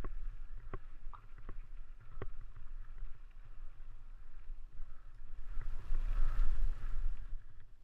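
Mountain bike climbing a rocky single track: a steady low rumble of wind and riding on the microphone, with a few sharp ticks and rattles from the bike in the first couple of seconds. A louder rushing noise swells about five and a half seconds in and fades near the end.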